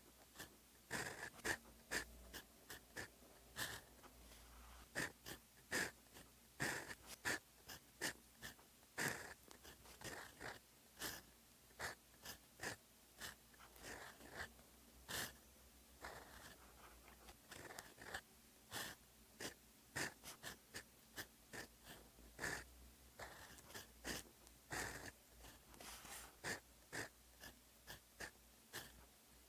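Fountain pen nib scratching across paper while Hangul is handwritten: a string of short, irregular scratches, one for each pen stroke.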